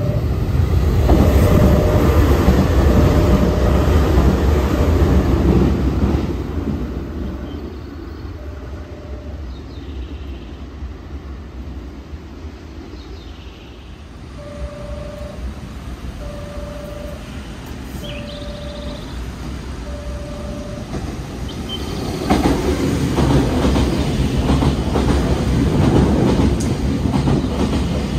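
Nankai electric trains running through the station without stopping. A train rumbles past on the rails for the first six seconds or so, and a second train rushes by with clattering wheels for the last six seconds. In between, a short electronic warning tone repeats about every second and a half.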